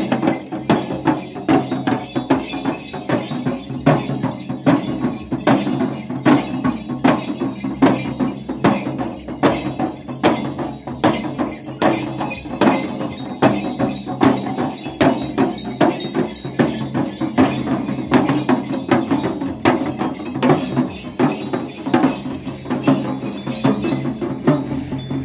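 Jhankri shamans' dhyangro frame drums beaten with sticks in a steady, repeating rhythm, with a metallic jingling over the beats.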